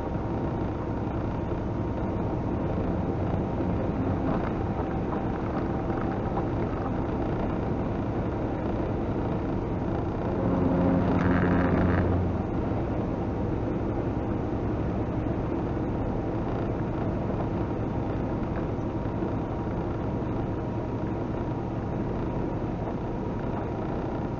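Steady truck engine and road noise heard from inside the cab at highway speed. Near the middle, a louder humming tone lasts for about two seconds.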